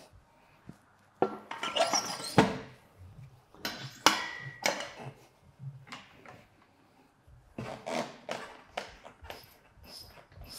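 Knocks, clunks and short scrapes of a manual tire changer's bead breaker being worked against a stiff motorcycle touring tire, breaking the bead on the second side, with a run of lighter taps near the end.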